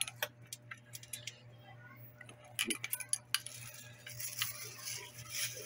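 Small metal clicks and clinks from an adjustable wrench and the steel nosepieces of a hand rivet gun as a nosepiece is unscrewed and swapped, with a busier rattle in the second half.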